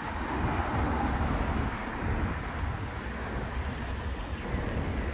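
City street ambience: a steady rumble of road traffic.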